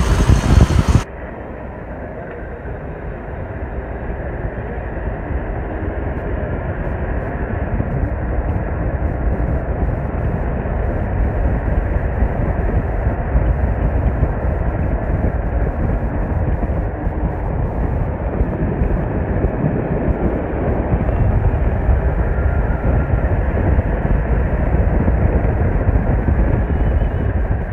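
Road and engine noise of a moving vehicle, heard through an open side window with wind buffeting the microphone. A brief louder burst comes right at the start, then a steady rumble that builds over the first few seconds and holds.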